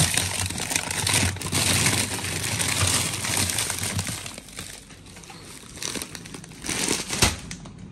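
Plastic food bags crinkling and rustling as they are handled, steadily for the first four seconds, then again briefly near the end with a sharp knock.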